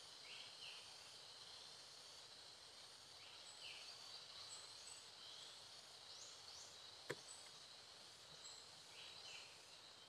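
Faint outdoor ambience: a steady high insect drone with short rising bird chirps, mostly in pairs, every few seconds. A single sharp click comes about seven seconds in.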